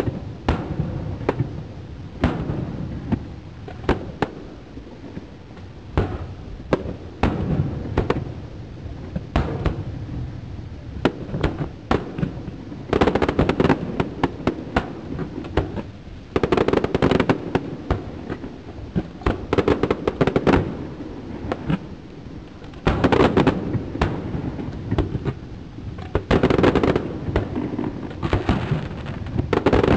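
Aerial fireworks shells bursting overhead: sharp bangs throughout, with denser clusters of rapid crackling bangs every few seconds.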